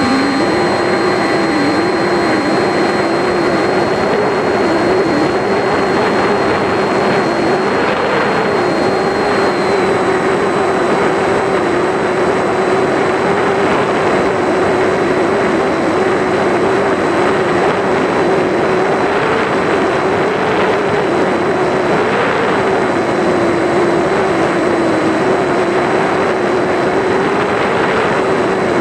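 RC plane's motor and propeller running in flight, recorded by the camera on board, under a heavy rush of wind. The drone holds a steady pitch that wavers a little as the throttle and airspeed change.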